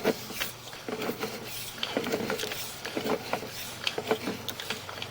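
Sewer inspection camera's push cable being pulled back by hand, with irregular clicks and knocks over a steady low hum.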